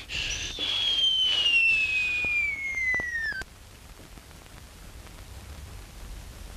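Cartoon sound-effect whistle, gliding steadily down in pitch for about three seconds and cutting off suddenly. After it comes the faint, even hiss of an early sound-film soundtrack.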